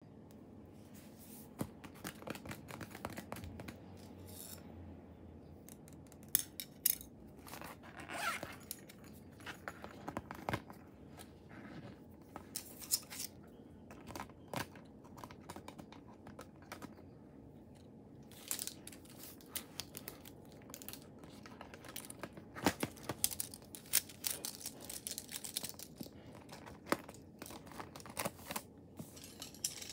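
A clear plastic zip pencil case and the scissors and pens inside it being handled: scattered taps, clicks and crinkles of plastic, with a longer scraping rustle about eight seconds in.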